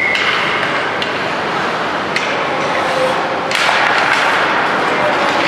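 Ice hockey play on an indoor rink: a few sharp clacks of sticks on the ice, then, a bit past halfway, a louder rush of skate blades scraping and sticks clattering as the faceoff is taken.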